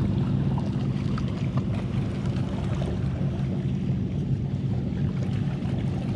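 Steady low motor hum with wind and water noise.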